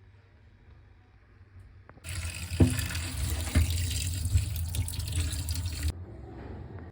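Water running hard from a tap into a sink for about four seconds, turned on about two seconds in and shut off abruptly, with a couple of knocks early in the flow.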